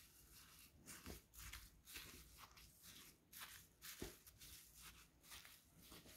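Faint scratchy rustling of a wooden stick stirring coconut-coir potting mix and white foam beads in a plastic bowl, in short repeated strokes.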